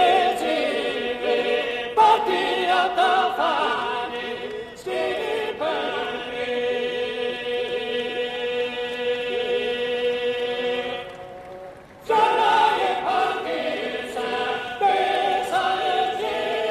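Choral singing with long held, wavering notes; it drops away briefly about twelve seconds in, then resumes.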